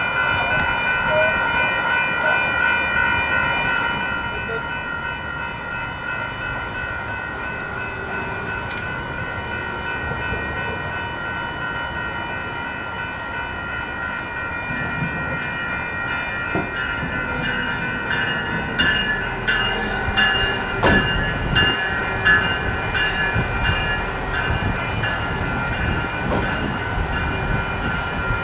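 Railroad crossing warning bell ringing in a rapid, steady pattern while a train passes through the crossing. Its wheels set up a regular clacking over the rail joints from about two-thirds of the way in.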